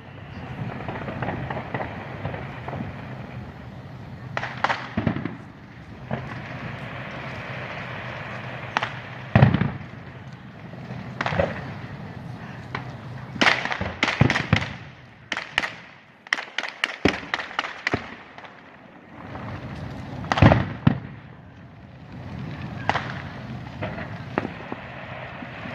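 Fireworks show: aerial shells bursting with sharp bangs every second or few, and a quick run of crackling reports about halfway through.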